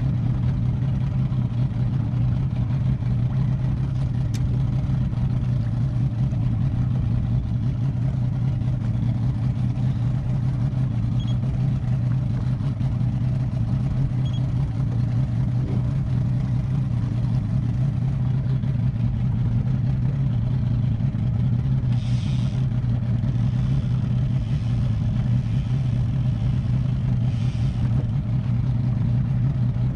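Engine of a 20-foot Wellcraft center-console boat running steadily at an even pitch. Two brief hissing rushes come late on.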